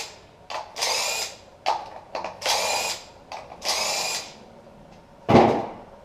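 A cordless power tool spinning in three short whining runs as the ignition coil hold-down bolts come off the 3.7 L Atlas inline-five. A few small metal clicks fall between the runs, and a louder knock comes near the end.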